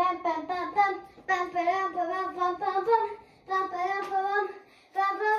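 A child singing a tune in short phrases of held, high notes.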